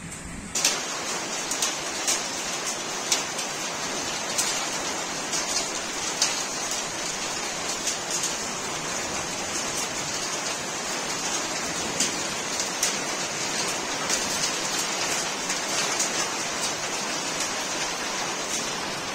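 Hailstorm: a steady downpour of hail and rain, with irregular sharp clicks of hailstones striking hard surfaces. It gets suddenly louder about half a second in.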